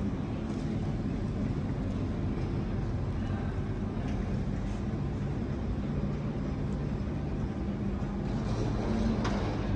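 Steady low rumble of a running vehicle, with a faint even hum and no break or change.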